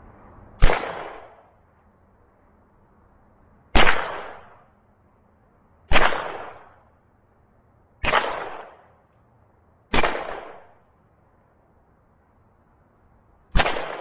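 Six single gunshots fired at a deliberate pace, two to three and a half seconds apart, each followed by a short echo.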